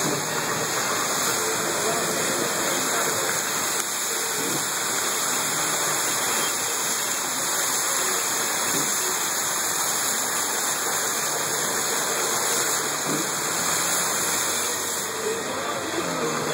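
Steady, unbroken rushing of water, from flooding and heavy rain.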